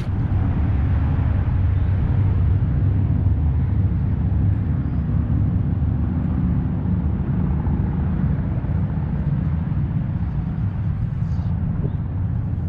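Wind blowing across the microphone: a steady low rumble with no clear pitch.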